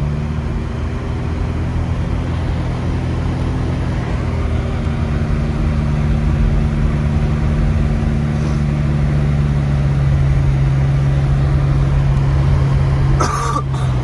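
Car engine humming steadily with tyre and road noise on wet pavement while driving, heard from inside the cabin. The hum picks up slightly as it begins, then holds. A brief sharp noise comes near the end.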